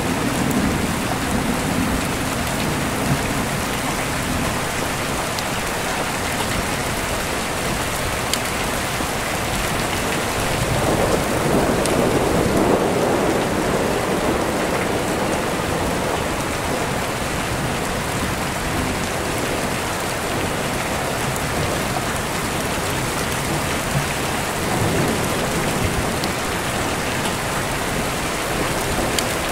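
Steady heavy rain with deep rolling thunder rumbling in a few times: one fading over the first few seconds, the loudest about a third of the way in, and a weaker roll near the end.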